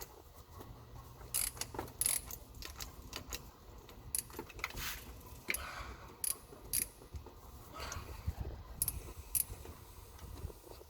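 Irregular metallic clicks and clinks from a ratchet wrench with a 10 mm socket and extension working a bolt, tool metal knocking against metal.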